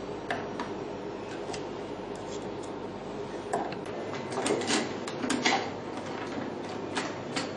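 Scattered light clicks and knocks of a PDT lamp head and its metal stand fittings being handled and fitted into place, over a steady hiss. The knocks bunch together in the middle, with another single one near the end.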